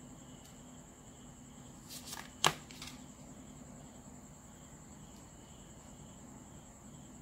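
A flexible plastic ruler being repositioned on paper: a few light scrapes and rustles, then one sharp clack about two and a half seconds in as it is set down. A faint steady high-pitched tone runs underneath.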